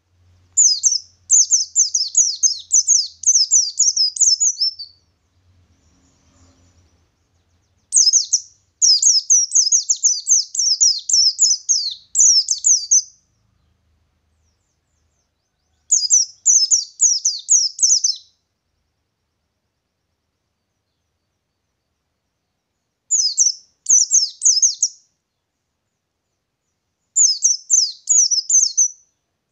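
A white-eye (pleci ngalas) singing its long rolling song, high fast chirps strung into rapid phrases. There are five phrases of a few seconds each, separated by short pauses; the first two are the longest.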